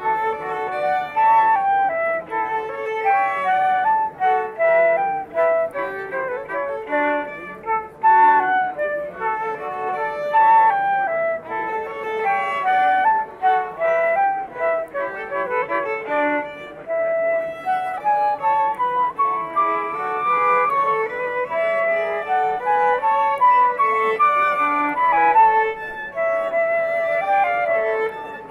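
Flute and violin playing a classical piece together, a melody of short, quickly changing notes.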